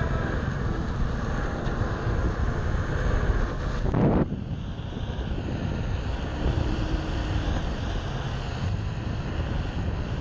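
Wind on the microphone and road and traffic noise from riding a Onewheel XR electric board along a street with cars. There is a short thump about four seconds in, after which the noise turns lighter and thinner.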